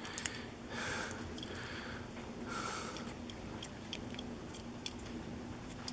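Faint small metallic clicks and scraping from a shim being worked in between the plug and housing of a pin-tumbler lock cylinder, with two soft hissing noises about a second in and again past two and a half seconds.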